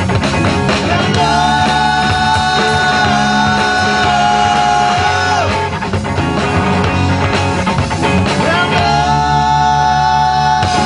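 Live rock trio of electric guitar, bass guitar and drums jamming a steady groove. Two long held high notes ring over it, one about a second in that drops away about five seconds in, and another near the end.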